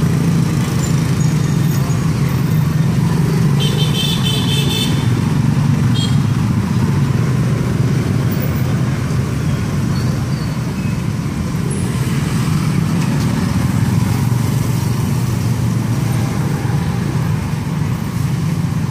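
Steady low engine noise of road traffic running close by, with a brief high-pitched sound about four seconds in.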